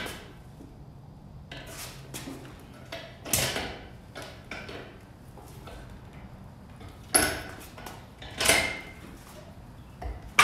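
Metal motorcycle rear stands clanking and scraping against a concrete floor as they are set under the rear of a motorcycle to lift the back wheel. There are about five separate short scrapes and clanks with pauses between them.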